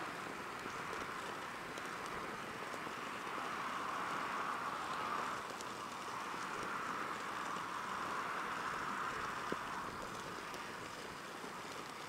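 Small wood fire crackling faintly now and then in a stainless steel fire grill, with one sharper pop late on. Behind it a steady hiss of wind and surf swells and eases every few seconds.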